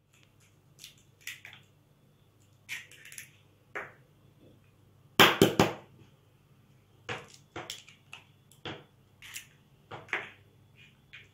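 Eggs cracked on the edge of a plastic mixing bowl: a cluster of sharp knocks as a shell is struck about five seconds in, with lighter clicks and taps of shell and bowl before and after.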